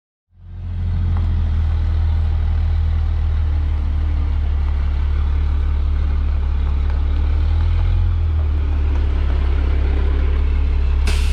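Dump truck's diesel engine running steadily with a deep, even hum, and a short sharp hiss near the end.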